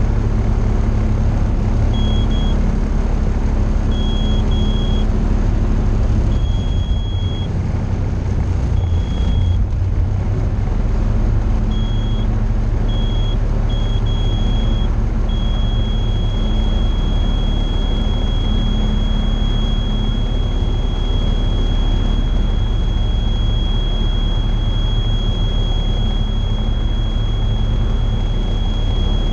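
Tecnam P2002JF's Rotax 912 four-cylinder engine running on in the climb after takeoff while giving only partial power, heard inside the cabin. A high cockpit warning tone sounds in short beeps and then holds steadily from about halfway through.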